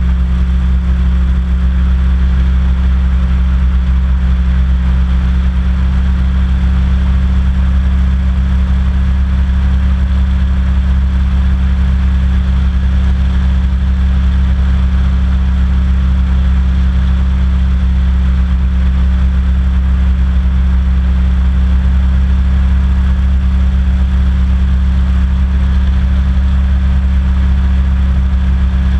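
Hovercraft engine and fan running steadily while the craft cruises over water: a loud, even drone with a strong low hum that does not change pitch.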